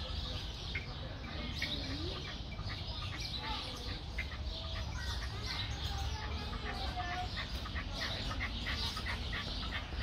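Aviary birds calling: a steady run of short chirps with a few lower calls, over a steady low rumble.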